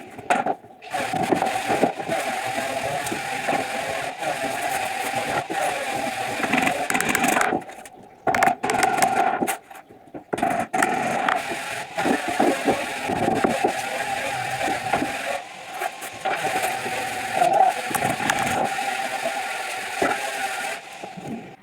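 Small power-tool motor running steadily, with scraping noise from the work, broken by several abrupt cuts where the sound drops out.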